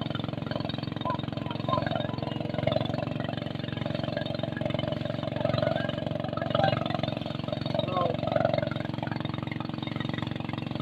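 Motorboat engine running steadily at a low, even pitch, with faint voices in the background.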